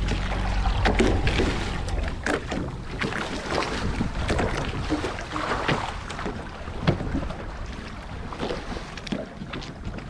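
Choppy seawater slapping and splashing against the side of a small fishing boat, in short irregular slaps, with wind rumbling on the microphone, strongest in the first two seconds.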